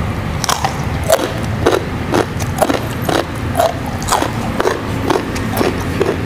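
Close-up crunchy chewing of raw young jengkol (dogfruit) beans, steady at about two crunches a second.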